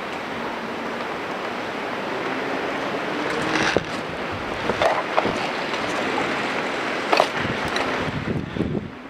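Steady wind rumble and rustle on an action camera's microphone, broken by a few short sharp clicks or snaps about four, five and seven seconds in.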